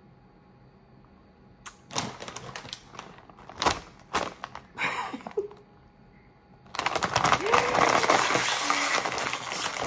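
Plastic snack bag of popcorn mini cakes crinkling as it is handled in scattered bursts, then loud, continuous crinkling from about seven seconds in as the bag is worked open.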